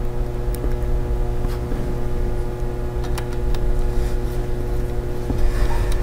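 Steady low background hum with a faint constant tone, and a few faint light clicks from a small screwdriver and tiny laptop screws being handled.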